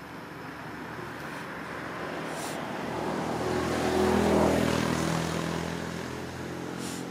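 A motor vehicle passing by: its engine hum swells slowly to a peak about four seconds in, then fades away.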